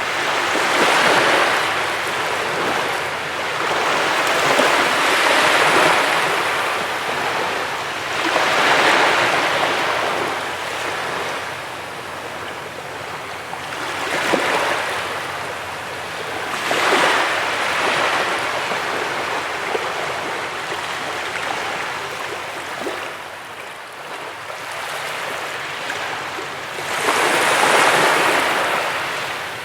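Sea waves breaking on a beach: a rush of surf that swells and falls away every few seconds, with the last wave near the end the loudest.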